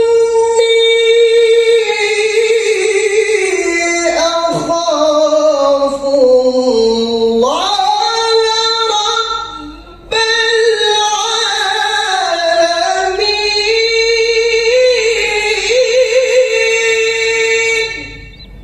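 A male Quran reciter's high, powerful voice chanting in long drawn-out melismatic notes in the melodic tilawah style. The line holds high, sinks slowly and climbs again, breaks for a breath about ten seconds in, then resumes and fades near the end.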